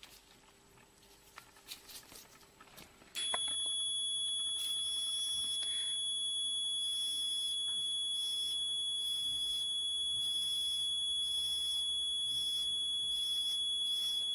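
Electrosurgical unit sounding its steady high-pitched activation tone while its pen burns off a skin mole. The tone switches on about three seconds in, after a few faint ticks, and cuts off abruptly near the end.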